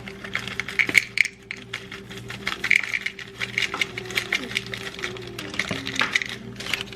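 Chocolate chips clattering into a measuring cup as a cup is measured out, a rapid irregular run of small hard clicks and clinks, over a steady low hum.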